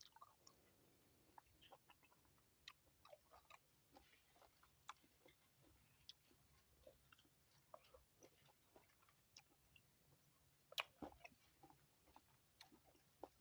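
Faint chewing of juicy sweet lime (mosambi) segments: soft, scattered mouth clicks and smacks, with a few louder ones about eleven seconds in.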